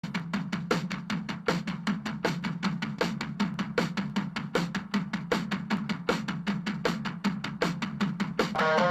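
Rock song's drum-kit intro: bass drum and snare playing a fast, even beat of about five hits a second, with guitar coming in near the end.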